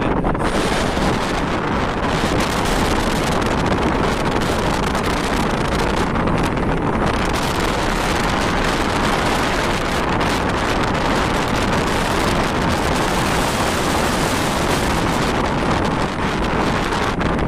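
Strong wind buffeting the microphone: a loud, steady rushing noise with no let-up.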